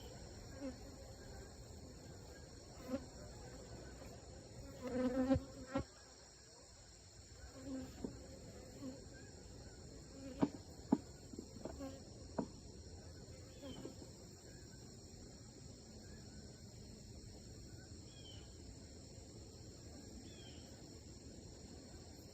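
A steady, high-pitched insect chorus runs throughout. Honeybees buzz briefly past now and then, the loudest about five seconds in, and there are a few sharp clicks about ten to twelve seconds in.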